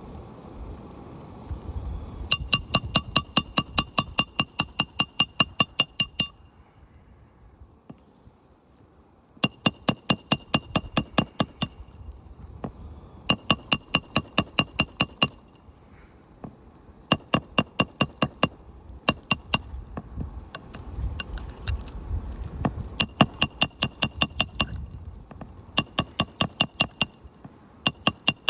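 Hammer striking steel in quick bursts during a roof shingle repair, about five or six ringing metallic strikes a second for two to four seconds at a time, with short pauses between bursts.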